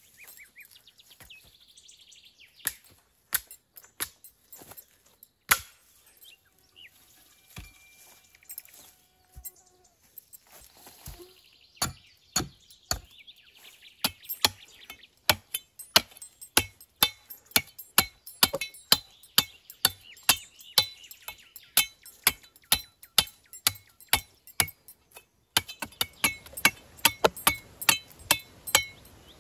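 Wood being chopped with short, sharp blows: a few scattered strikes at first, then a steady run of about two to three strikes a second from roughly halfway through. Birds sing in the background.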